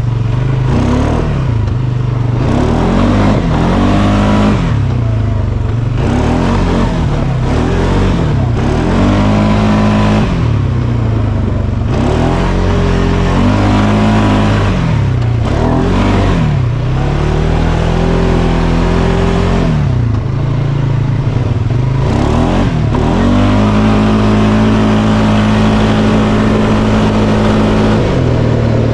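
Polaris Sportsman 570 ATV's 567cc single-cylinder four-stroke engine revving up and easing off again and again under throttle, then holding at high revs for several seconds near the end.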